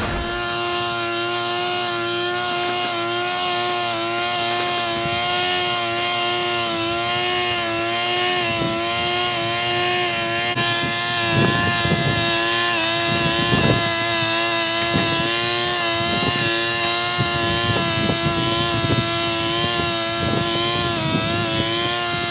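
Petrol brush cutter running at high speed, a steady engine whine that wavers slightly as the throttle moves. From about halfway through, its cutting head swishes through tall grass in repeated strokes.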